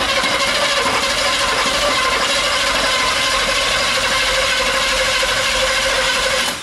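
Starter motor cranking the freshly swapped engine for about six and a half seconds. The engine turns over steadily without firing; its distributor cap turns out to be on 180 degrees out.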